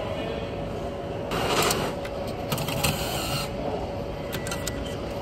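ATM's banknote mechanism counting and dispensing cash: a whirring rush of about two seconds, then a few sharp clicks, over a faint steady hum.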